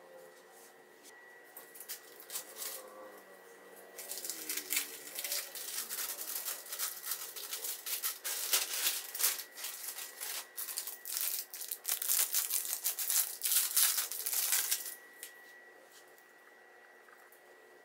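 Plastic packaging and a plastic bag crinkling and rustling as items are unwrapped and handled by hand. It starts about four seconds in and stops abruptly a few seconds before the end.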